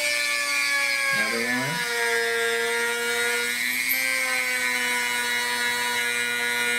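Dremel rotary tool whining steadily as a 2 mm bit drills a pilot hole into a wooden rifle stock. The pitch dips and recovers briefly about a second in as the bit loads in the wood.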